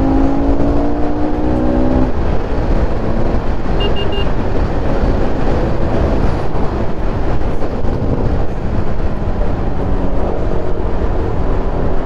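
Motorcycle on the move, with heavy wind noise buffeting a helmet-mounted camera. The engine note climbs steadily for about two seconds, then drops out beneath the wind. A few quick high beeps come about four seconds in.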